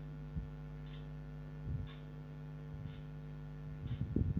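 Steady electrical hum under soft, occasional knocks and scrapes of a spatula stirring bubbling jaggery in a non-stick pan, the knocks coming more often near the end.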